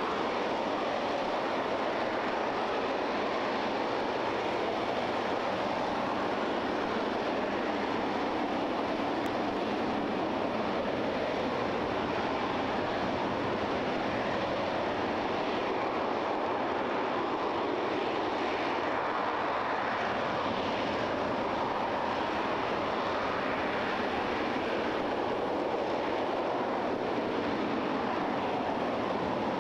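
RS-25 liquid-hydrogen/liquid-oxygen rocket engine firing in a hot-fire test: a steady, unbroken rush of exhaust noise that holds the same level throughout.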